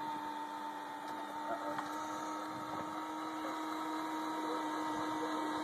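Electric screwdriver motor running with a steady whine as it turns a threaded rod that slowly drives a chicken coop door open.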